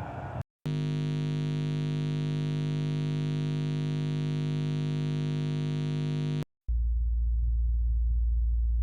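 A steady, overtone-rich buzz, held for about six seconds and cut off abruptly. After a brief gap a deep, low, steady hum begins.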